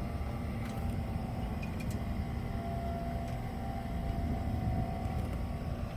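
Steady low rumble of thunderstorm ambience, with a faint steady siren tone heard through it for a couple of seconds in the middle.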